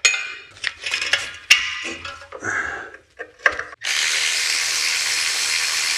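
Wrench work on the underside of a car: irregular metal clicks, knocks and scrapes. About four seconds in, a steady rushing noise starts and holds.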